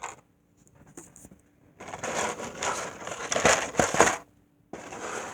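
Packaging being handled and crumpled: a crinkling, crackling rustle for about two seconds in the middle, with a couple of sharper cracks near its end.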